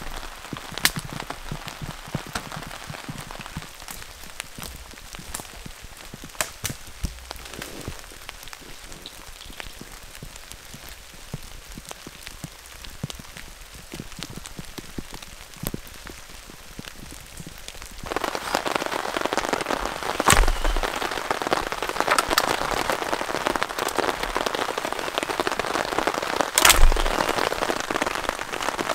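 Steady rain in the woods with scattered sharp drips. About eighteen seconds in it turns suddenly louder and denser, rain pattering on a tarp overhead, with a couple of heavier drops striking it.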